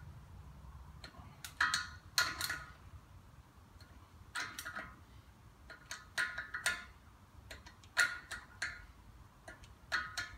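A socket ratchet clicking in about five short runs, roughly every two seconds, as its handle is swung back between pulls to tighten the 40 mm front wheel-hub lock nut to its final tension.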